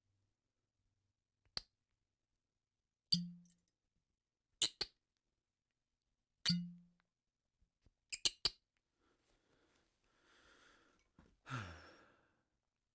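Corks popping out of bottles again and again: sharp single and double pops a second or two apart, some with a short hollow low ring. A brief hiss with a sliding-down tone comes near the end.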